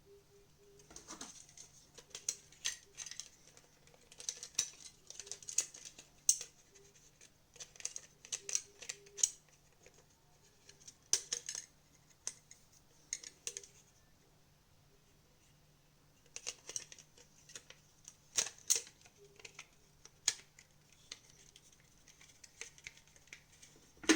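Plastic parts of a TV remote being handled and fitted back together: irregular clusters of small clicks, taps and scrapes, with a pause of about two seconds past the middle and a sharper click at the very end.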